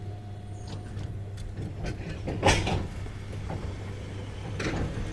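Electric commuter train standing at a platform with a steady low hum, and a sharp knock about two and a half seconds in, then another near the end.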